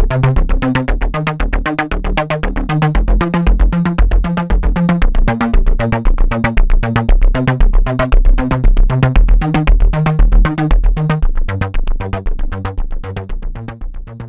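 Electronic music with a steady, fast beat and a stepping synth bass line, fading out near the end.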